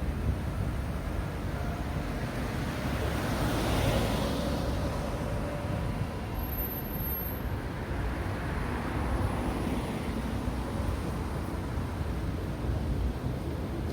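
Road traffic noise, with a vehicle passing about four seconds in.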